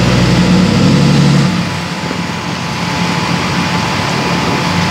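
Engine idling with a loud low hum that drops away about one and a half seconds in, leaving a quieter engine drone over a steady hiss.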